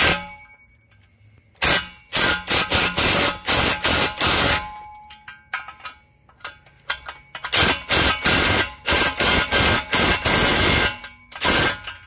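Cordless impact wrench hammering the bolts of an exhaust pipe flange tight, in bursts of rapid clatter: a brief one at the start, a run of about three seconds, a pause, then a run of about four seconds and a short last one near the end.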